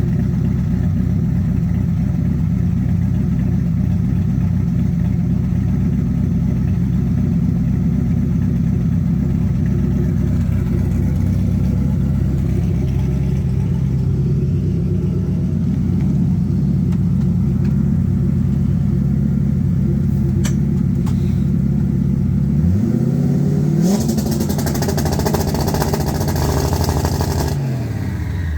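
Car engine running steadily, then revving up about 23 seconds in with a loud rush of noise, and dropping back in pitch near the end.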